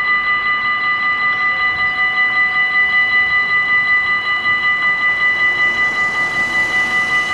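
Dutch automatic level-crossing bells ringing together, a steady high ring with a fast even pulse: the warning that a train is approaching while the half-barriers come down.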